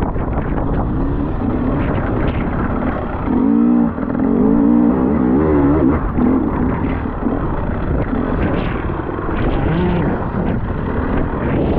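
Enduro motorcycle engine revving up and down a few seconds in, under steady wind buffeting the microphone.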